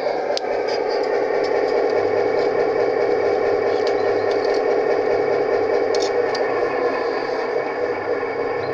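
Zimo sound decoder playing its EMD 16-567 diesel engine sound through the loudspeaker of a G-scale F3A model locomotive, running steadily.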